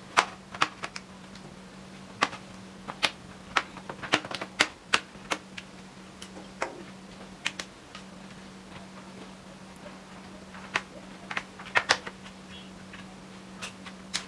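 Plastic snap clips of an Acer Aspire 5 laptop's bottom cover clicking and popping loose as a plastic card pries along the seam: a string of sharp, irregular clicks, thickest in the first few seconds and again about eleven seconds in. A faint steady low hum runs underneath.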